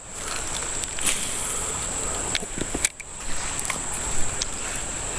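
Shallow mountain stream running as a steady rushing, with a steady high-pitched tone over it and a few faint clicks.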